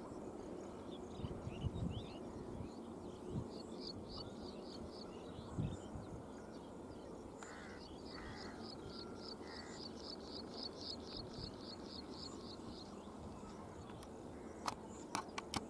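Rural outdoor ambience with a high, rhythmic chirping from a small creature, repeated about three times a second. Three short, higher tones come around the middle, and a few soft low thumps occur throughout.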